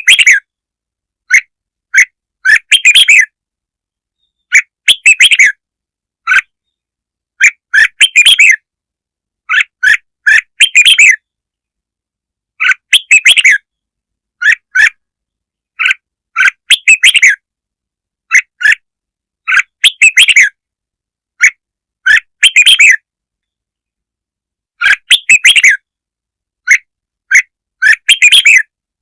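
Red-whiskered bulbul song as a lure call: short clusters of bright chirping phrases every two to three seconds, with silence between them.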